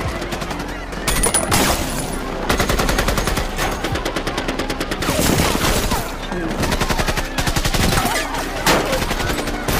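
Film soundtrack of a firefight: automatic rifle fire in rapid bursts of many shots a second, with brief pauses between bursts.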